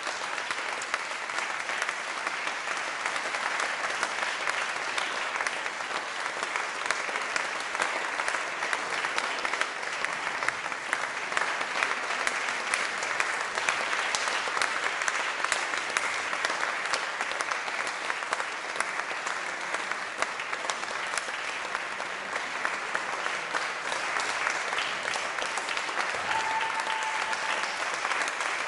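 Theatre audience giving a long, steady ovation: dense clapping with no break. A short held tone rises briefly above the applause near the end.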